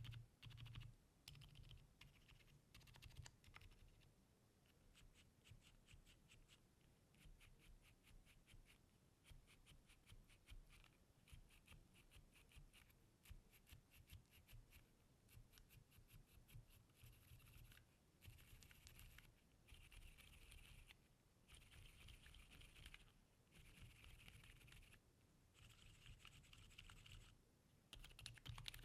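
Typing on a Neo80 custom mechanical keyboard with Akko Fairy switches and GMK Red Line keycaps: faint, fast runs of muted key presses. The runs come in louder, denser stretches in the second half.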